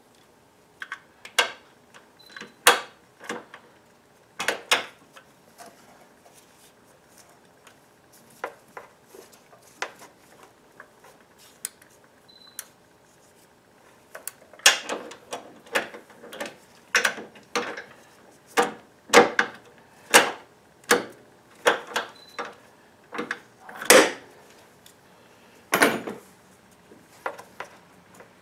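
A wrench clinking and knocking against metal parts in a car's engine bay while a motor mount bolt is worked on. The clicks are sharp and irregular, sparse through the first half and coming thicker from about halfway through.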